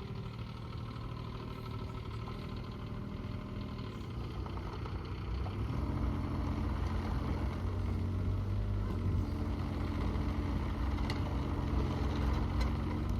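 Diesel engine of a Bobcat E20 compact excavator running steadily; about five to six seconds in it gets louder and its tone changes, then holds steady.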